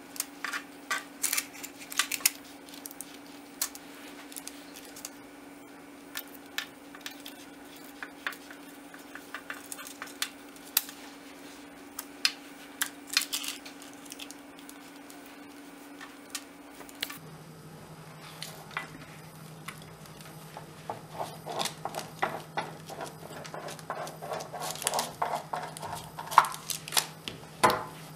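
Knife cutting and trimming a crisp baked waffle sheet in a metal baking tray: sharp clicks and scrapes of the blade against the crust and tray. In the last several seconds these turn into denser crackling and rustling as the parchment and trimmed pieces are handled. A low steady hum runs underneath.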